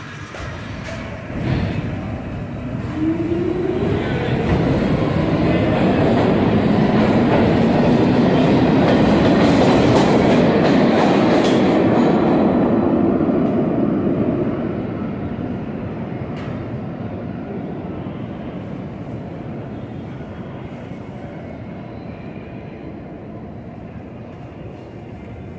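New York City subway train pulling out of the station: a rumble that swells over the first few seconds with a rising whine from the traction motors as it gathers speed, then fades away gradually over the last ten seconds.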